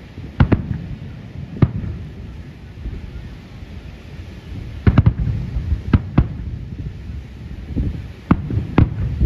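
Aerial firework shells bursting over the sea: about ten sharp bangs at uneven intervals, several close together about five seconds in, with a low rumble lingering between them.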